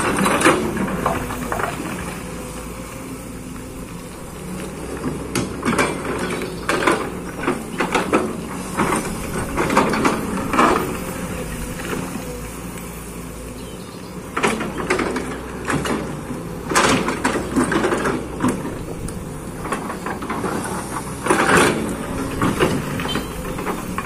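Kobelco excavator at work: its diesel engine runs steadily underneath, with repeated sharp knocks and scrapes from the digging.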